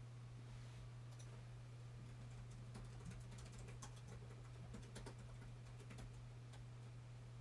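Faint, scattered light clicks, irregular and a few to the second, over a steady low hum.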